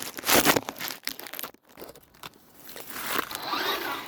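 RC car driving over loose ground: crunching, scraping noise, loudest in the first second and again near the end, where a faint whining glide comes through.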